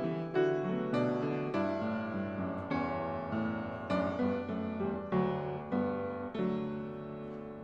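Solo piano playing a slow, quiet piece: chords and melody notes struck every half second to a second and left to ring and fade, softening toward the end.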